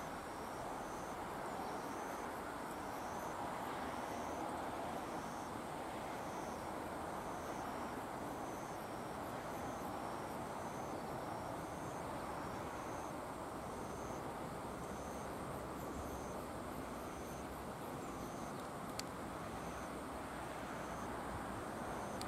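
Outdoor ambience of a steady low rush, with an insect chirping high and evenly about once a second, and a single sharp click late on.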